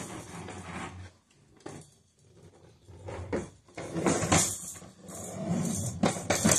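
Plastic wheels of a baby's push walker rolling and knocking over a hardwood floor, with a quiet lull from about one to three seconds in before the rolling picks up again.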